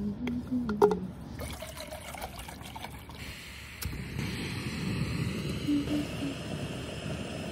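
Water poured from a plastic gallon jug into a Jetboil stove's cooking cup: a steady trickle and splash as the cup fills.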